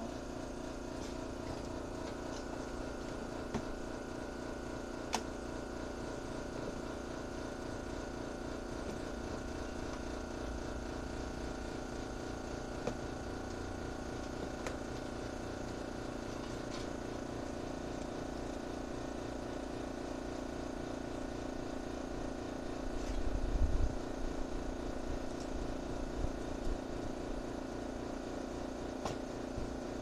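Steady mechanical hum of a running motor, with a few sharp clicks and a short low rumble late on as the coffee maker is handled.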